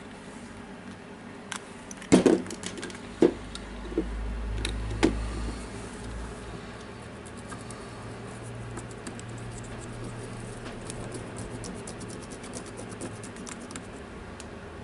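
Small parts of a cordless drill's trigger switch and controller being handled, with a few sharp plastic clicks and knocks in the first five seconds. After that comes a long run of faint, quick scratchy ticks from a cotton swab rubbing over the switch contacts to clean them.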